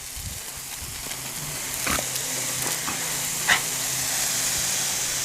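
Garden hose spraying water in a steady hiss that grows gradually louder, with short sounds from the dog snapping at the spray about two and three and a half seconds in.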